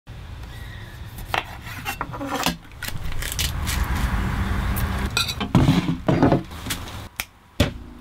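A kitchen knife slicing cherry tomatoes on a wooden cutting board, a series of sharp knocks as the blade hits the wood, with rubbing and handling sounds of food preparation.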